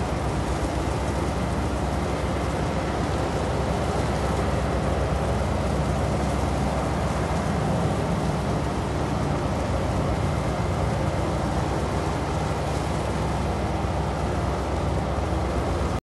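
Steady engine rumble from a small boat under way on open sea, mixed with rushing wind and water noise on the microphone.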